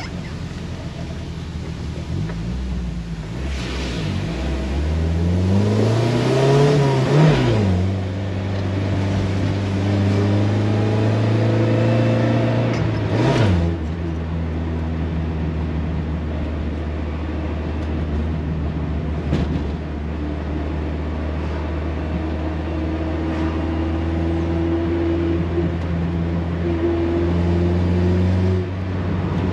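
Toyota Corolla AE86's engine heard from inside the cabin while driving. It pulls up through a gear with rising pitch and drops sharply at a gear change about seven seconds in, changes gear again around thirteen seconds in, then cruises at a steady pitch. Tyre hiss on the wet road is heard at the start.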